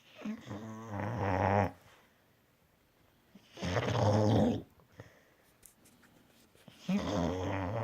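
Boxer dog snoring: three long snores, one every three seconds or so, with quiet breaths between. The last one is still going at the end.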